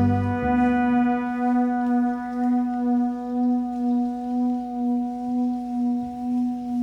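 Background music: a single held note ringing on with a slow, even pulse in loudness, after a low bass part drops out about half a second in.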